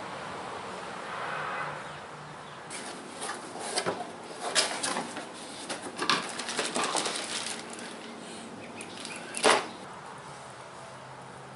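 Packaging rustling and crinkling in a run of short, irregular bursts, the loudest near the end, as accessories are unpacked from the box.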